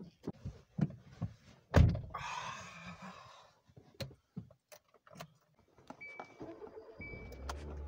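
Car door slammed shut about two seconds in, among softer knocks and rustling as the driver settles into the seat, then a few clicks of the key going into the ignition. Near the end the engine starts and runs steadily at idle, while a short dashboard warning chime beeps about once a second.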